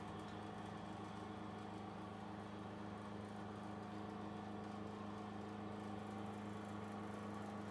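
Thojomech TFC11 CNC milling machine cutting aluminium with a 12 mm four-flute end mill, 3 mm deep under flood coolant: a steady machining hum with several fixed tones.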